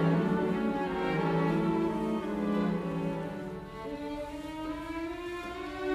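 Background music of slow, held notes.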